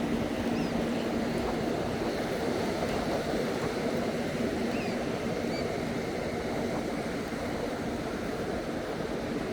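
Steady rush of surf and wind. A low engine hum fades out over the first couple of seconds.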